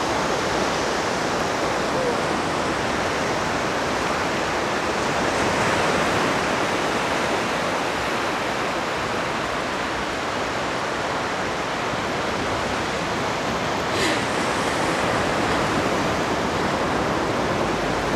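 Steady rushing of sea surf, even and unbroken, with one short click about three-quarters of the way through.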